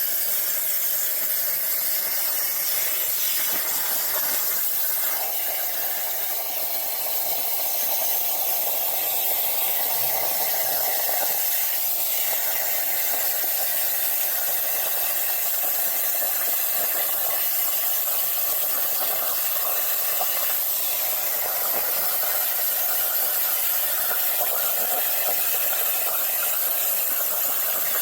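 CNC plasma cutter cutting a part: a steady hiss from the plasma arc and its compressed air, easing off slightly for a moment about six seconds in.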